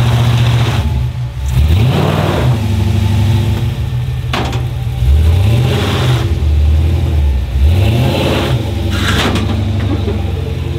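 LS V8 engine of a swapped Chevy S10 pickup running and revving up and down in several short pulls as the truck climbs onto a trailer's ramps.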